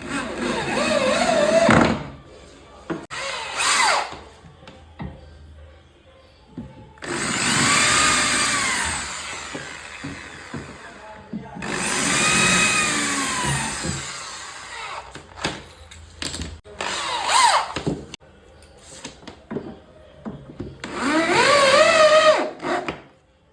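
Cordless drill driving screws, in about six separate runs of a few seconds each, its motor whine rising and falling in pitch as it speeds up and slows under load. This is the hydraulic gas-lift bracket being screwed to a bed frame.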